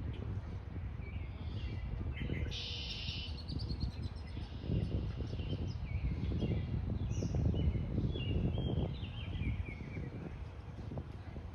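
Small birds chirping and singing in short, repeated descending phrases over a low background rumble that swells in the middle.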